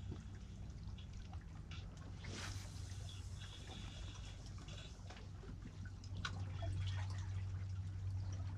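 Shallow sea water lapping and dripping among shoreline rocks, with many small irregular trickles and drips, over a steady low hum. A brief hiss comes about two seconds in.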